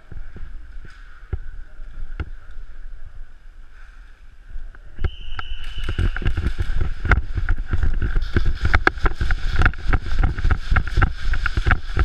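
Footsteps on a concrete floor and gear clattering as players move quickly, with rumble and rubbing noise on a GoPro Hero 3 worn by one of them. It is sparse for the first few seconds, then a dense run of irregular knocks and clatter starts about halfway as the team pushes forward.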